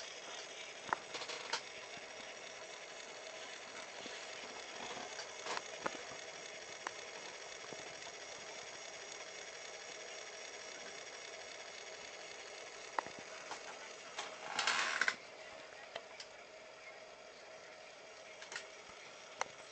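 Sony CDP-M19 CD player's disc mechanism running with a steady whir as the disc spins on a newly replaced laser pickup. A few sharp clicks come about a second in, and a brief louder rasp comes about three-quarters of the way through.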